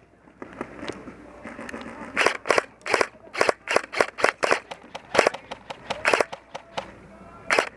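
Airsoft gun fired in single shots, about a dozen sharp pops at uneven intervals, starting about two seconds in.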